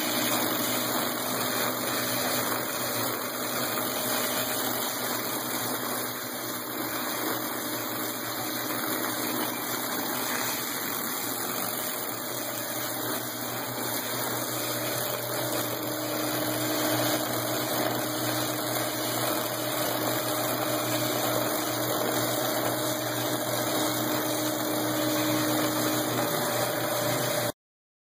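Flexographic label printing press running at speed: a steady whir of rollers and moving web, with a faint hum.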